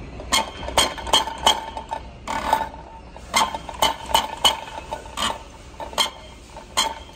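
Diesel injector nozzle on a hand-lever pop tester, pumped stroke by stroke: about a dozen sharp metallic clicks, each with a short ring, coming unevenly at roughly one or two a second.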